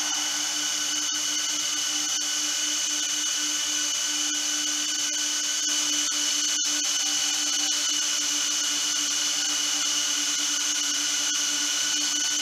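Cooling fans of an Arista 7150S data-centre switch running: a steady whir with a constant low hum and a high whine over a hiss.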